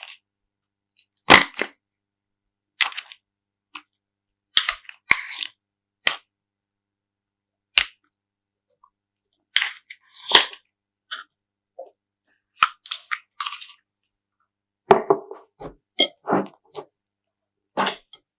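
Slime being pressed and worked by hand, giving short sharp pops and crackles at irregular intervals with silence between them. About three quarters of the way in comes a closer run of fuller, lower squishes.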